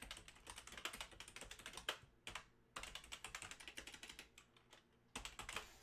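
Faint typing on a computer keyboard: quick runs of keystrokes in three stretches, with short pauses between them.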